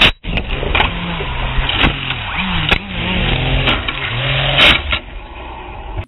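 FPV quadcopter hitting a plexiglass window with a sharp crack, then its motors whirring up and down in pitch as it tumbles to the ground, with several sharp knocks. The motors cut out about five seconds in.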